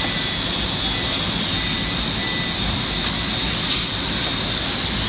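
Mazak Multiplex 6100Y CNC lathe running: a steady high whine over a constant mechanical hum and hiss.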